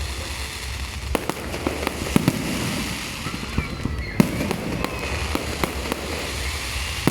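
Fireworks going off: a string of irregular sharp bangs and pops over a steady background din, the loudest bang a little past halfway.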